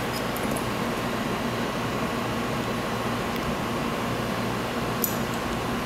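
Steady ventilation hum of a room, with a few faint clicks and one slightly louder click about five seconds in.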